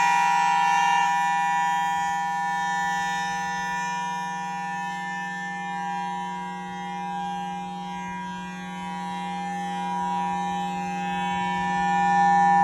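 Federal Signal Thunderbolt 1003 outdoor warning siren sounding a steady, unchanging alert tone. The tone fades through the middle and swells back up near the end as the rotating siren head turns away and back.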